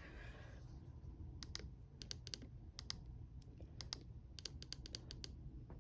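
Small plastic buttons on a weather radio clicking as they are pressed to switch it off: a quick, irregular run of about a dozen light clicks starting about a second and a half in, over a low steady hum.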